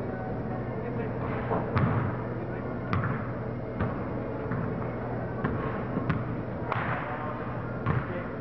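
A basketball bouncing on a hardwood gym floor: irregular sharp thumps, each about a second or more apart, in a large echoing gym with a steady low hum underneath.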